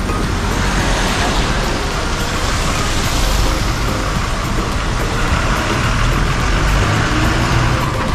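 Heavy trucks driving past close by on a wet road: a low diesel engine rumble with a hiss of tyres on the wet surface. The hiss swells about three seconds in, and the rumble grows louder in the second half as a long container car-carrier truck goes by.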